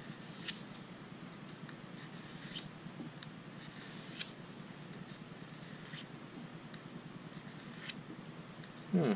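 Swiss Army pocket knife blade drawn along the sharpening stone of a Victorinox pocket sharpener: five light scraping strokes about two seconds apart, each ending in a sharp tick.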